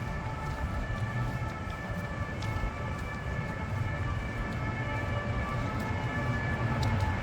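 City street ambience: a steady low traffic rumble, with several steady high-pitched tones held over it.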